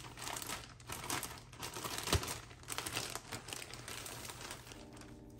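Thin clear plastic poly bag crinkling and rustling as it is pulled open and handled to get a garment out. There is one sharp click about two seconds in.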